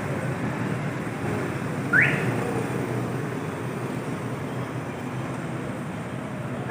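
Steady road traffic noise, with one short rising chirp about two seconds in.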